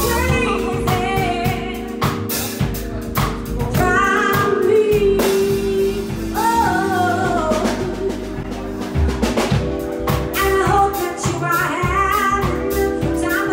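Live band: a singer's voice over held keyboard chords and a drum kit, with a gliding sung melody and steady drum hits.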